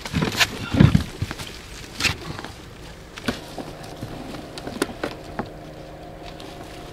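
Knocks and bumps of metal pipes being handled aboard an inflatable boat, the loudest about a second in. About three seconds in a steady hum with several even tones sets in.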